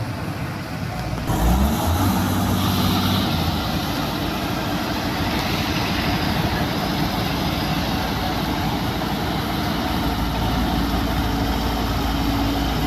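Heavy vehicle engine revving up sharply about a second in, then running steadily under load as it pulls a stuck road roller free, with a deeper low rumble near the end.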